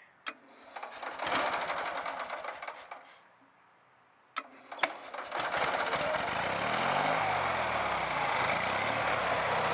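Onan 4.0 generator engine being started. A first burst of cranking dies away, the starter clicks in again about four and a half seconds in, and the engine catches and settles into a steady run.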